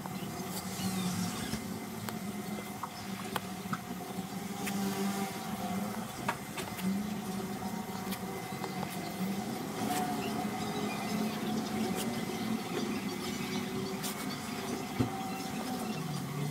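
Soldering-iron tip tapping and dragging along a plastic seam as it melts plastic filler in, giving scattered light clicks and ticks over a steady, wavering low hum.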